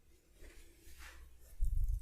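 Hands massaging oiled skin and hair, with soft rubbing swishes, then a dull low thump near the end.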